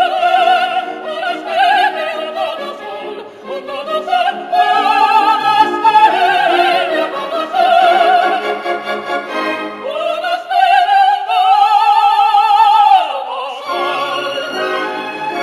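An operatic soprano and tenor sing a love duet together with full vibrato over an orchestra. The voices climb to a long held high note that breaks off about two seconds before the end, and the orchestra plays on.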